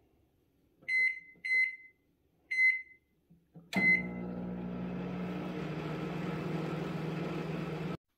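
Whirlpool microwave oven keypad beeping four times as the cooking time is keyed in and Start is pressed. The oven then switches on with a click and runs with a steady hum, which cuts off suddenly near the end.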